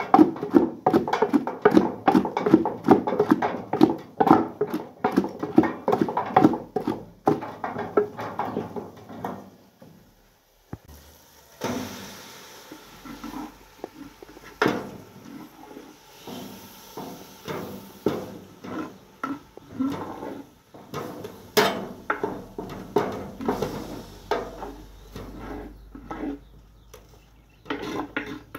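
Mushrooms being pounded with a pestle in a mortar: rapid, regular strokes that stop about ten seconds in, followed after a short pause by slower, scattered knocks.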